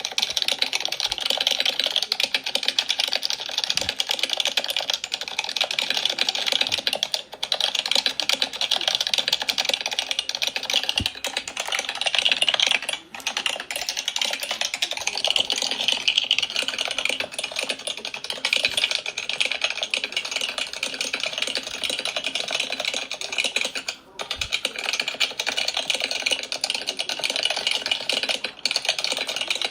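Fast, continuous typing on a computer keyboard: a dense stream of key clicks, broken by brief pauses about 13 and 24 seconds in.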